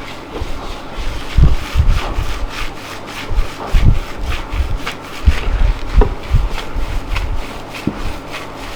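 Hands rubbing and pressing in a barbershop massage: irregular rubbing strokes over skin and cloth, with soft low thumps at uneven intervals.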